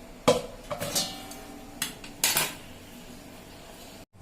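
Metal kitchen utensils clinking and knocking against a cooking pot as a boiled herbal decoction is strained. There are about five knocks over two seconds, the first the loudest, some leaving a short ring.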